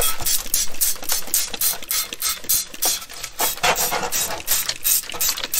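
A stiff brush scrubbing the wet back of a steel drum brake backing plate fresh out of rust remover: quick, uneven scraping strokes, several a second, as loosened rust and paint residue comes off.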